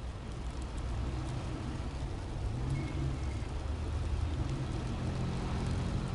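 Car engines running in snow, a steady low rumble with a hiss over it.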